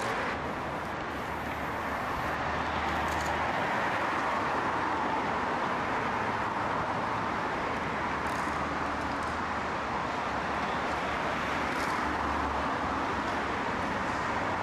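Steady hum of distant road traffic, an even rushing noise without distinct events.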